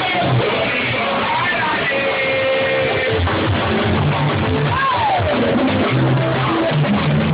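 Live band music led by guitar over a steady bass line, with voices singing.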